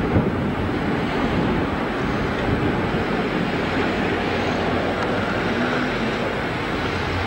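Steady rushing wind and sea noise buffeting the microphone, an even hiss and rumble with no distinct events.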